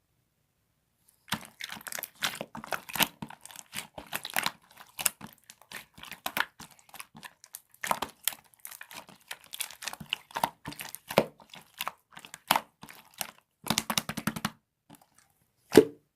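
Clear slime being squished and stretched by hand, making dense wet crackling and popping clicks that start about a second in, with one loud pop near the end.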